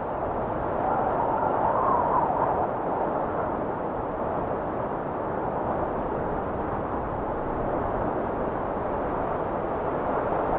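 Recorded wind blowing, a steady rushing sound with gentle gusts swelling and easing, fading up as the section begins.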